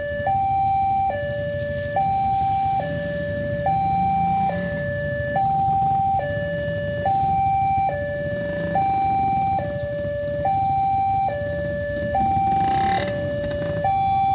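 Railway level-crossing warning alarm from the loudspeaker on the crossing signal post, sounding an electronic two-tone ding-dong. A higher and a lower note alternate evenly, each held a little under a second. It warns that a train is approaching while the barrier arms are down.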